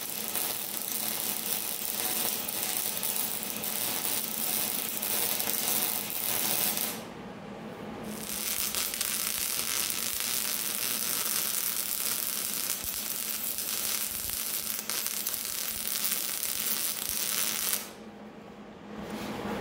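Arc welding a bead on steel pipe: a steady crackling hiss from the arc. It stops for about a second, about seven seconds in, then resumes, and stops again shortly before the end.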